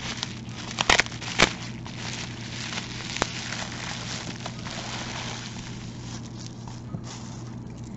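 Bubble wrap crinkling and crackling as a beaded necklace is pulled out of a bubble-wrap pouch, with two sharp clicks about a second in.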